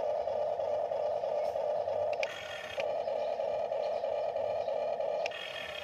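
Toy RC excavator's small electric motors and plastic gearboxes whining steadily as it works its arm and tracks. The tone switches briefly to a higher whine about two seconds in and again near the end.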